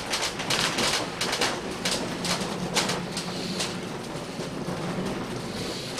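Heritage railway carriage in motion, rattling and clattering, with irregular clicks and knocks over a steady low hum.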